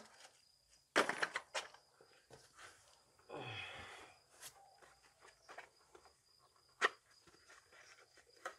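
Hard plastic parts and packaging being handled: a quick cluster of clicks and knocks about a second in, a short scraping rustle around three and a half seconds, and one sharp knock near seven seconds.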